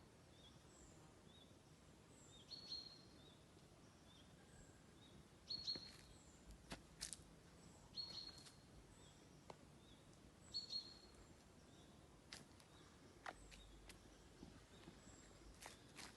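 Forest birds calling faintly: one short call repeats about every two and a half to three seconds, with fainter high chirps between. A few sharp clicks are heard scattered through it.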